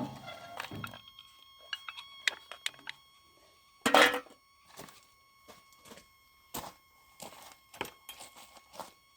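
Homemade motor-driven log splitter with a geared reducer running with a faint steady whine. Scattered clicks and knocks come from the mechanism, with one louder noisy clatter about four seconds in.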